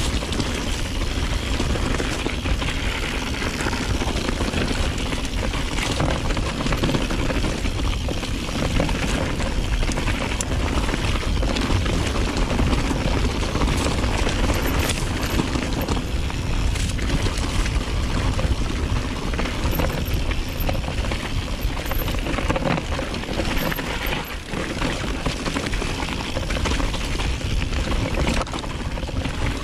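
Mountain bike being ridden on a trail: a steady rushing rumble of wind on the microphone with rolling tyre and trail noise.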